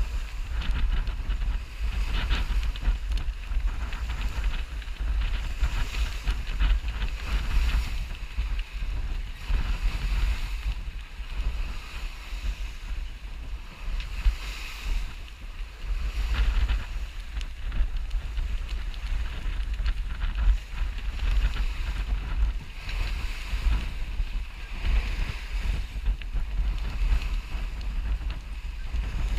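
Wind buffeting a GoPro's microphone as a sailboat moves under way, with water rushing along the hull. The hiss swells and fades every few seconds.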